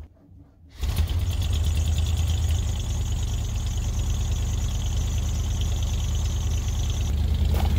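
Fleetwood Bounder motorhome's engine idling steadily with a low rumble, cold-started after sitting for a couple of months and running fairly well. It comes in about a second in, after a brief near-silent gap.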